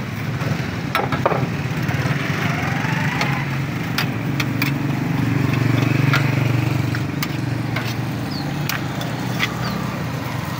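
Low, steady engine hum of passing road traffic, swelling about five to seven seconds in. Sharp metallic clicks and taps sound throughout as a metal rod stirs the coals of a corn-roasting brazier.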